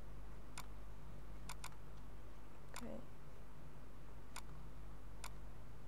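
Computer mouse clicks, six in all, including a quick double-click about a second and a half in, over a steady low hum.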